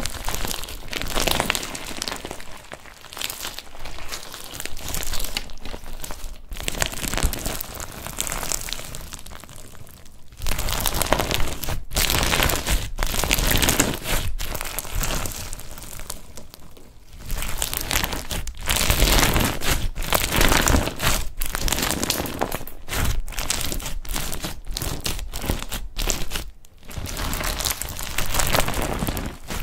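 Clear slime loaded with plastic beads and star confetti being squeezed, stretched and pressed by hand, giving a dense crackle of many small clicks and sticky squelches. It gets louder and fuller about a third of the way in, as the slime is pressed flat against the table, with a couple of brief pauses later on.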